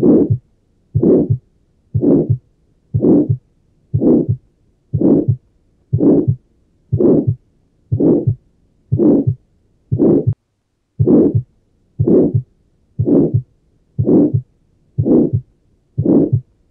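Heart of a patient with Tetralogy of Fallot heard at the pulmonary area, beating about once a second. Each beat carries a crescendo-decrescendo systolic ejection murmur, followed by a single second heart sound, because pulmonary valve closure is inaudible.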